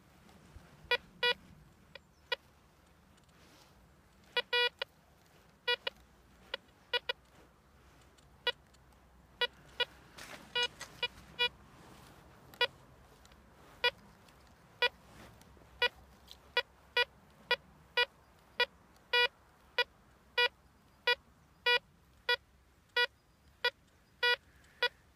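Pirate Treasure Hunter 2 Pro metal detector in single-tone mode giving short, unbroken beeps as its search coil is swept over a 10 cent coin buried among rusty iron nails. The beeps are scattered at first, then come regularly, about one every half to two-thirds of a second, in the second half.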